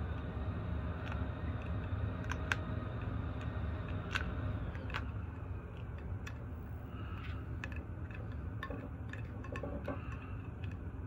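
Fingers smoothing double-sided grip tape around a golf club shaft: scattered small clicks and light handling noise over a steady low hum.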